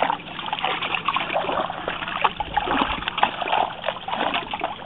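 Pond water splashing and sloshing in many small irregular splashes as small fish are scooped by hand out of a fine-mesh net into a water-filled pot at the bank.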